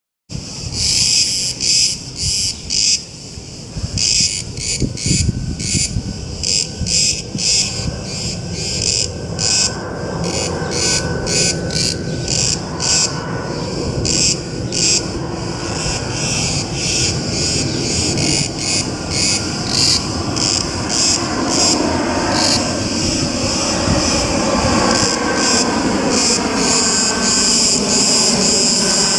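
Cicadas buzzing in rapid, repeating pulses. Under them, the jet noise of an Icelandair Boeing 757-200 on approach with its gear down grows louder from about ten seconds in. Its engine whine falls in pitch as it passes overhead.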